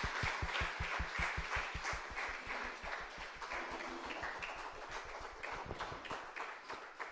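Audience applauding, a dense run of many hands clapping that slowly dies down toward the end.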